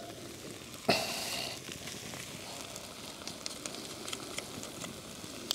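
Sizzling and small crackles from a Dutch oven cooking on a wood-burning stove, with a sharp knock about a second in followed by a brief louder burst of sizzle.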